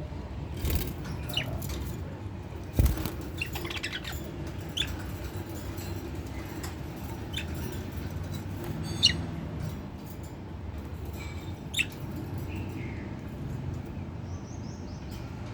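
Caged lovebirds giving short, sharp, high chirps every second or few, with rustling and a sharp knock about three seconds in, over a steady low hum.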